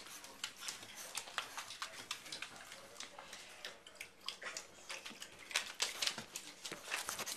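Seven-week-old Boxer puppies playing and scrabbling about: a scatter of irregular quick clicks, scratches and rustles.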